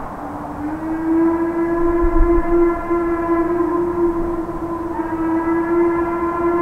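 Steam whistle of C&O H-6 No. 1309, a 2-6-6-2 Mallet steam locomotive, blowing one long blast. It starts a moment in, slides up slightly in pitch as it opens, then holds a steady chord-like tone.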